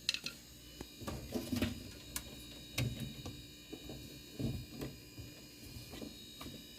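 Scattered light knocks, taps and clicks at irregular intervals, the sound of hand work on furnace parts and tools, over a faint steady hum.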